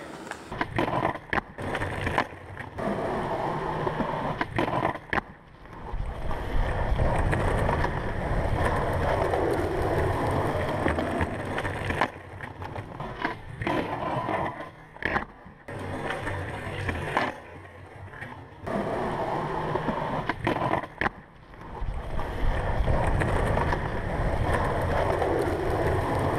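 Skateboard wheels rolling over rough concrete with a steady low rumble, broken by repeated sharp clacks of the board popping, hitting a concrete ledge and landing.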